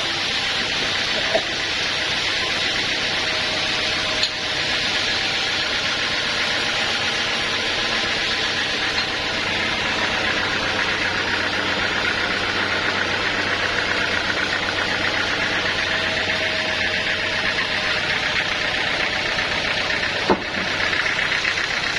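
Sawmill machinery running steadily, a continuous mechanical noise with a hissing edge, broken by a few sharp knocks, one about a second in, one about four seconds in, and one near the end.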